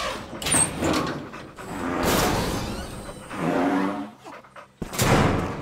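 Cartoon mechanical sound effects as a robot elephant truck's trunk extends and fits a shovel bucket: a series of noisy sliding swells, the last and loudest about five seconds in.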